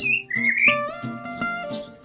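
Background music on acoustic guitar, plucked notes held and changing slowly. A bird chirps briefly near the start.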